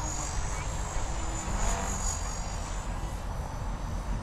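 Twister CP Gold electric RC helicopter's motor and rotor whine, a thin high-pitched tone that wavers slightly as it flies, over a low rumble.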